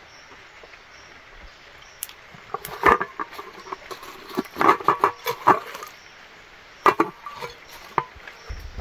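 Aluminium cooking pot and lid clanking as they are handled: a run of sharp metallic knocks with brief ringing, starting about two seconds in and coming in clusters, over a soft steady hiss.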